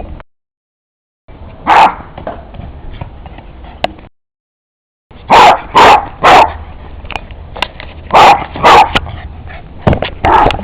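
A dog barking in short bursts: a single bark, then three in quick succession, two more, and another near the end.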